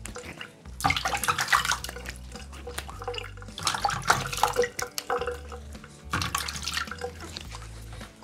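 Water running from a tap and splashing in several irregular bursts as a face is rinsed after shaving, washing off the product applied to the shaved skin.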